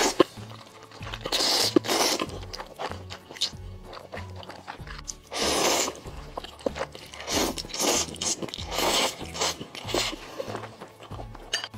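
Spicy instant fire noodles slurped up from a bowl in several loud slurps, with chewing in between. Background music with a steady beat plays underneath.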